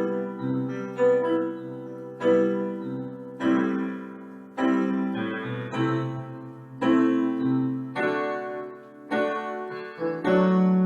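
Keyboard playing a chord progression in G major with a moving bass: right-hand chords over left-hand bass notes shifting to the third above or below the root. A new chord is struck about every second and left to ring.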